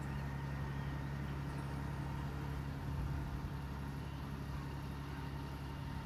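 Compact utility tractor engine running steadily.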